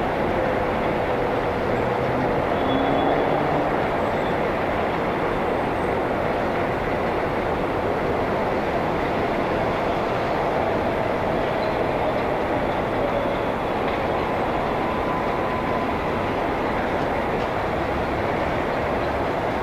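New York City Subway train running along an elevated steel viaduct: a steady rumble with faint, drawn-out squealing tones from the wheels.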